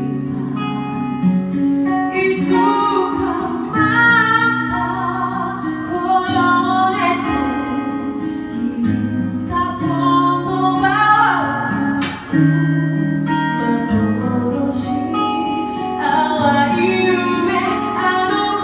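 Music plays throughout: a song with guitar accompaniment and a woman singing.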